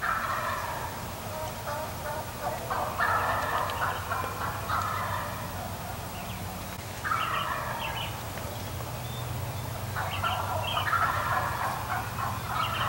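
Wild turkeys gobbling: about five gobbles, each a second or so long, coming roughly every three seconds.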